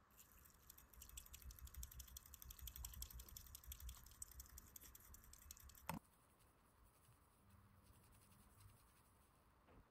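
Bamboo matcha whisk (chasen) brushing rapidly back and forth through matcha in a ceramic bowl, a quick, soft scratching as the tea is whisked until frothy. A sharp click about six seconds in, after which the whisking is fainter.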